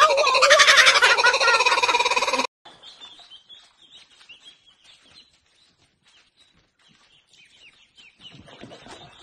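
Laughing kookaburra giving its loud, wavering chattering call, which cuts off abruptly about two and a half seconds in. After that, ducklings peep faintly.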